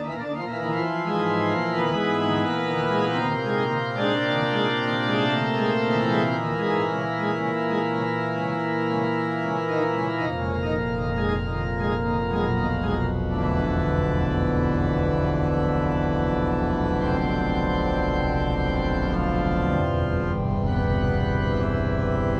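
Organ music: held, full chords, with deep bass notes coming in about halfway through.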